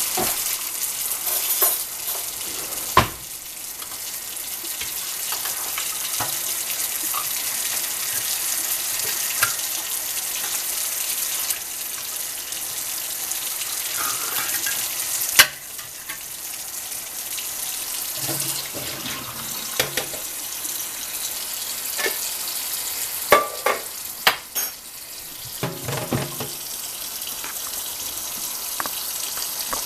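Kitchen faucet running steadily into a sink as green beans are strained and rinsed. Two sharp knocks come about three seconds in and about halfway through, and there are a few smaller bumps of handling later.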